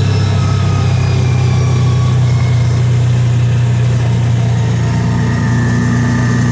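Kawasaki Teryx side-by-side's V-twin engine running steadily while riding, a constant low drone.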